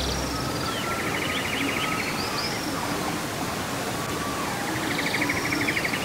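Steady noise of a small waterfall pouring into a rock pool, with a bird singing over it: a fast trill followed by high chirps, heard twice.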